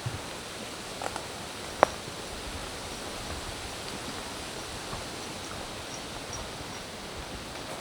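Steady rushing hiss of forest ambience, with a few sharp clicks in the first two seconds (the loudest about two seconds in), like footsteps snapping on the trail, and faint high bird chirps near the middle.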